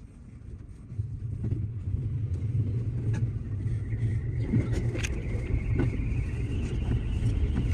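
JR West 207 series electric train pulling away and accelerating: a low running rumble swells about a second in, and from about halfway the traction motors add a whine that climbs steadily in pitch, with scattered clicks from the wheels on the track.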